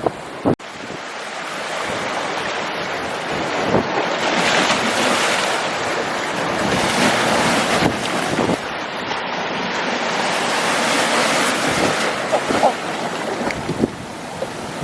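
Ocean surf breaking and washing in, swelling and easing over several seconds, with wind buffeting the microphone.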